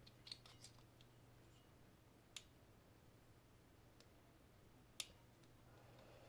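Small sharp metal clicks of a screwdriver tip prying at the toothed lock-washer tabs on a siren motor's upper bearing retaining nut: a quick cluster of clicks in the first second, then two single clicks, the loudest near the end, over a faint low hum.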